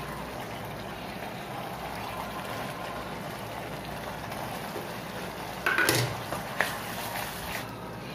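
Thick soy-based Manchurian sauce simmering and sizzling in a kadai, a steady hiss. About six seconds in comes a short loud clatter and sizzle as chopped onions are tipped into the sauce and a steel ladle knocks against the pan.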